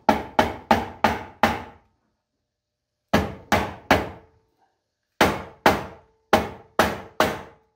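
Hammer taps on the Briggs & Stratton V-Twin's aluminum crankcase cover, seating it on the engine: quick runs of two to five sharp blows, about three a second, some leaving a brief metallic ring.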